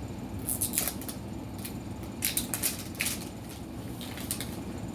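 Plastic wrapping of an L.O.L. Surprise ball crinkling and tearing as it is unwrapped by hand. The crackles come in four short bunches.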